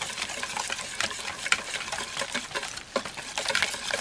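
Wire whisk beating a thin batter in a glass bowl: a fast, uneven run of clicks as the wires strike the glass, over a wet swishing of the batter.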